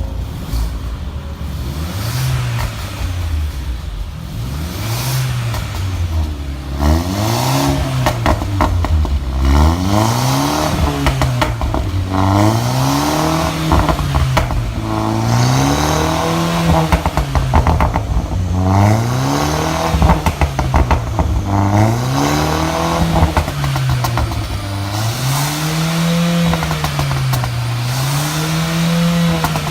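Mercedes-Benz A-Class engine through a valved exhaust, revved again and again, about one rev every two seconds. Exhaust pops and crackles come as the revs fall, more of them from about seven seconds in.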